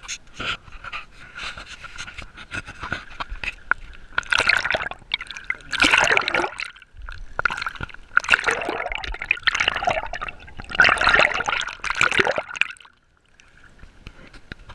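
Water splashing and sloshing in several surges, the loudest from about four seconds in until near the end.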